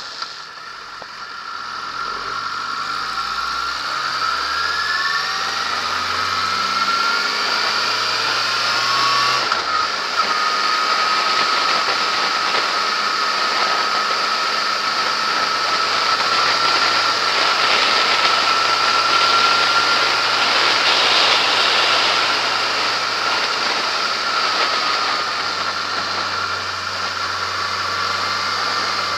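Yamaha XJ6S's 600 cc inline-four engine pulling away from a slow corner, its pitch climbing over several seconds with a brief break about ten seconds in. It then holds a steady cruise that rises a little and eases off near the end, with a steady rush of wind over the bike-mounted camera.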